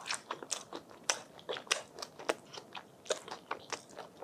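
Close-miked chewing of a rolled rice paper snack (bánh tráng cuộn) with butter sauce, a quick, irregular run of small crunches and mouth clicks.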